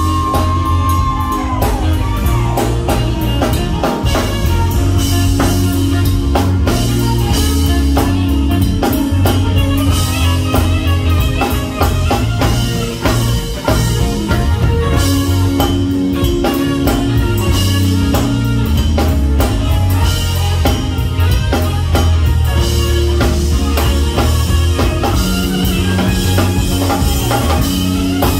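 Live band playing an instrumental passage: drum kit keeping a steady beat under electric guitar and bass, with saxophone.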